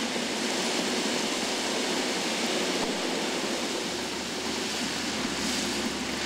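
Heavy track-renewal machinery running: a steady rushing noise with a faint low hum under it.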